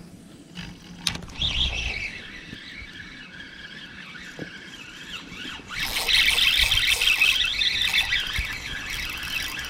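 Fishing reel giving a high-pitched, rasping whir as line comes in or goes out, growing much louder from about six seconds in as a fish comes on. Low wind rumble sits underneath.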